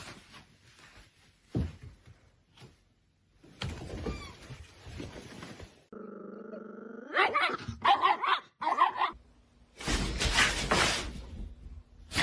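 A dog barking in a quick run of about five barks, among short bits of household noise with a few thuds and a loud rushing burst near the end.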